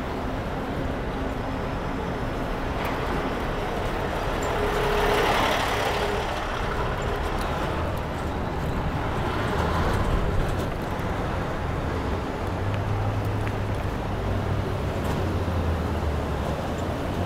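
City street traffic heard from a moving bicycle: steady road noise, with a vehicle passing louder about five seconds in and again around ten seconds. A low engine rumble follows in the last few seconds.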